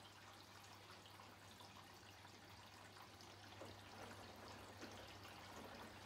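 Bosch Series 8 washing machine running its wash very quietly: faint splashing of water and clothes tumbling in the drum, over a low steady hum.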